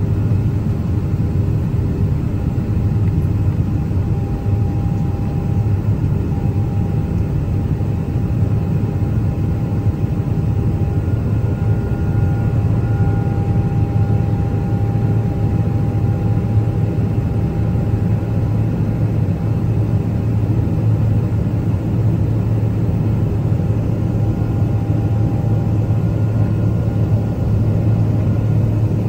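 Cabin noise of a Boeing 777-300 in its climb after takeoff, heard inside the cabin from a forward window seat: a steady, deep roar of engines and rushing air, with a faint, even whine running through it.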